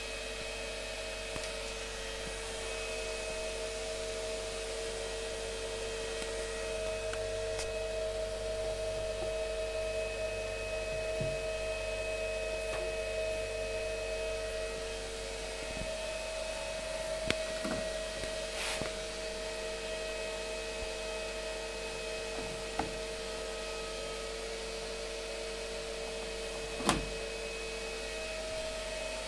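Whirlpool FSCR 80415 washing machine running with a steady motor hum made of two tones, the lower one dropping out about halfway. A few short knocks, the loudest near the end.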